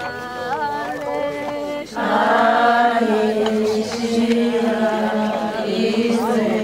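A group of voices singing together in long held notes, rising in loudness about two seconds in.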